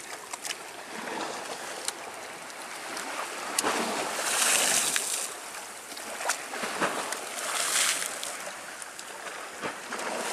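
Sea waves breaking and washing on the shore, the surf hiss swelling about four seconds in and again near eight seconds, with a few small sharp clicks.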